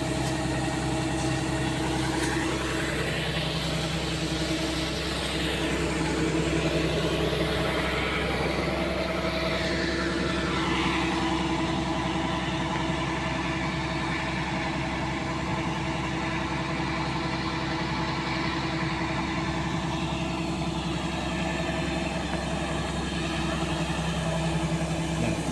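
Kubota DC-70 combine harvester's diesel engine running steadily while its unloading auger runs, emptying the grain tank into a truck.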